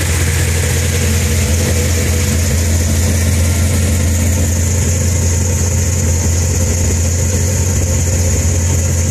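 1969 Plymouth Road Runner's 440 V8 idling steadily through a 3-inch custom exhaust with an H-pipe, chambered mufflers and turn-downs, a deep, even rumble with no revving.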